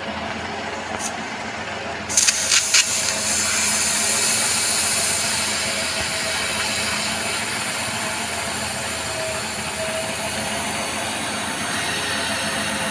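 A few clicks, then from about two seconds in a steady hiss of air escaping from a car tyre's valve as the tyre is let down from 30 PSI.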